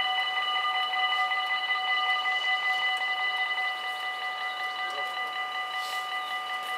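Dutch level-crossing (AOB) warning bells ringing with a fast, even, ringing tone while the boom barriers come down. The ringing drops in volume about four seconds in, once the barriers are down.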